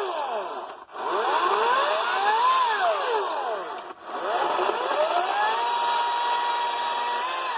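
Ryobi 40V 14-inch battery chainsaw's electric motor and chain whining in three runs. The pitch climbs and falls back twice, then climbs and holds steady for a couple of seconds before dropping near the end. The changes in speed go with how long the saw is kept cutting: it goes slow on small cuts and ramps up on longer ones.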